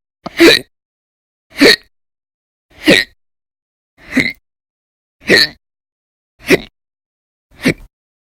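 A person hiccuping loudly and violently, seven short, sharp hiccups in a steady rhythm of about one every 1.2 seconds.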